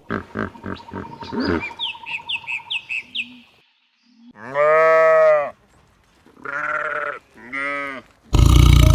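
Sheep bleating: one long bleat followed by two shorter ones. Before them come a run of quick pulses and a few short rising chirps, and a loud noisy sound breaks in suddenly near the end.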